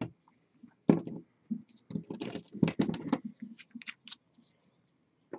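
Irregular clicks and taps of small hard objects being handled on a hobby painting desk, with a quick cluster of clicks in the middle and a few scrapes.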